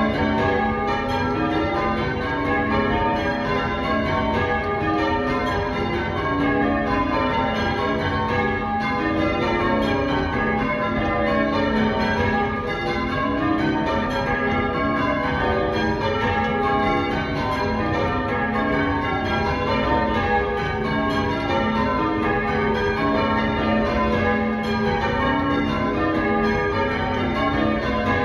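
A ring of church tower bells rung in changes (English change ringing), the bells striking one after another in a continuous, even stream.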